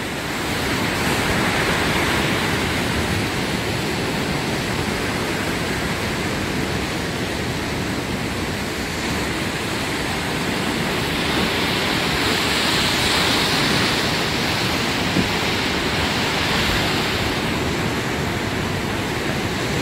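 Steady rushing noise of wind and ocean surf, swelling a little about two-thirds of the way through.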